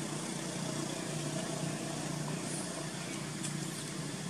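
Steady low hum of distant motor traffic with a faint hiss over it, and a faint light tick near the end.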